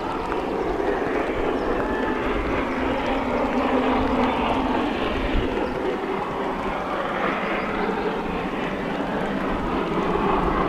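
LNER V2 2-6-2 steam locomotive hauling its train on a climb, heard as a steady rush of exhaust and running noise that swells and eases a little.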